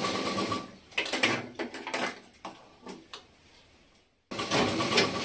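Motorised tailoring sewing machine stitching fast, stopping under a second in. A run of clicks and light knocks follows for about two seconds, then a short quiet, and the machine starts stitching again near the end.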